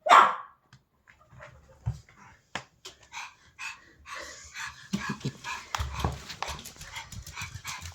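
Pomeranian dog: a sudden loud sound right at the start, then a run of quick, short panting sounds that grow denser about halfway through.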